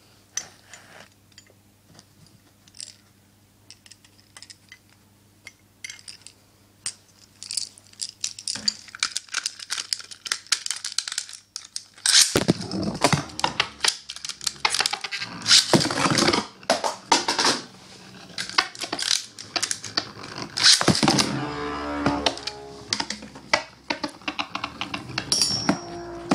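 Two metal-wheeled Beyblade spinning tops being handled with scattered light clicks and rattles, then launched about twelve seconds in: they spin on the stadium floor, scraping and clacking against each other and the wall, with repeated sharp hits.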